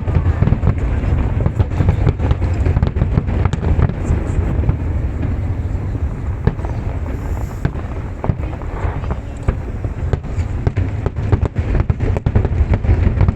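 Aerial fireworks display going off continuously: a dense run of sharp bangs and crackles over a steady deep rumble.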